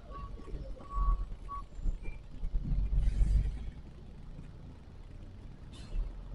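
Tractor-trailer truck engine rumbling low, with a few short high beeps in the first two seconds. A loud hiss rises with the engine about three seconds in, and a brief hiss comes near the end.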